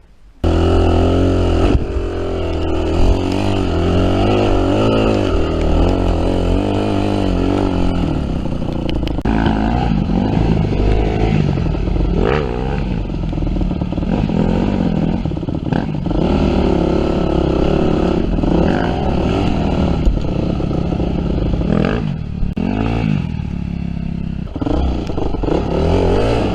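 Yamaha WR250F dirt bike's 250 cc four-stroke single-cylinder engine revving up and down as the bike is ridden. It comes in abruptly less than a second in.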